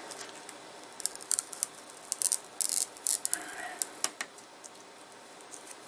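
Handling noise from the iMac's display panel being lifted off its frame: a cluster of small sharp clicks and crackles for about three seconds, then quiet handling near the end.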